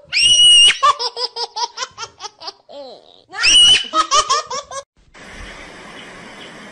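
A person's high-pitched squeal breaking into rapid bursts of laughter, twice over. After about five seconds it gives way to a faint steady hiss.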